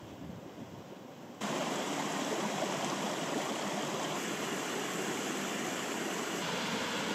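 Shallow rocky stream running over stones, a steady rushing babble that cuts in suddenly about a second and a half in, after a faint hiss.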